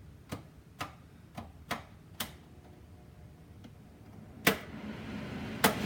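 A series of light, sharp clicks about two a second, then a pause and two louder clicks near the end, after which a steady rushing noise with a low hum starts.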